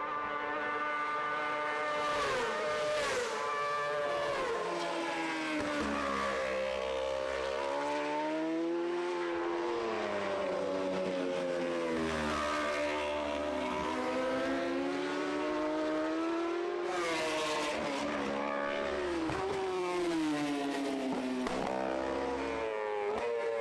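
Racing motorcycle engine at high revs, its pitch repeatedly climbing and dropping as the bike accelerates, shifts gear and brakes.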